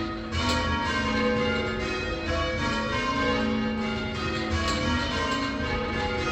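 Change ringing on the original St Martin-in-the-Fields tower bells, rung full circle: the bells strike one after another in an even rhythm, each note ringing on into the next, as the ringers work through call changes.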